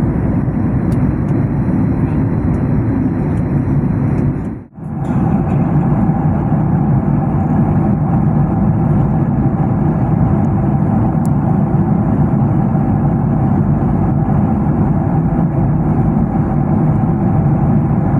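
Steady, loud cabin noise of a vehicle in motion, heard from inside. It cuts out briefly about five seconds in.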